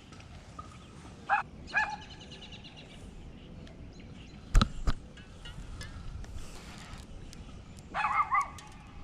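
A dog barking: two short barks about a second and a half in, then a quick run of yelping barks near the end. Two sharp knocks in the middle are the loudest sounds.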